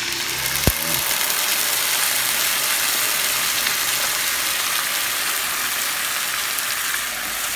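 Chicken livers and their soy-sauce-and-vinegar marinade sizzling steadily as they are poured into a hot oiled pan of sautéed onion and garlic. A single dull knock a little under a second in.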